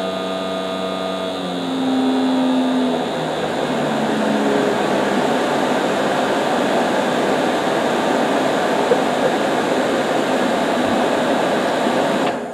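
Automotive AC blower motor running on a PWM speed controller: a whine that steps in pitch a few times over the first three seconds, then the fan's steady rush of air, which cuts off suddenly near the end.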